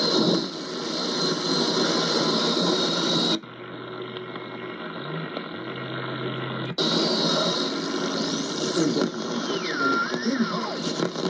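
Longwave static and hiss from a Yaesu FRG-8800 communications receiver between stations. The sound turns narrower and duller for about three seconds in the middle. Near the end, thin heterodyne whistles slide up and down in pitch.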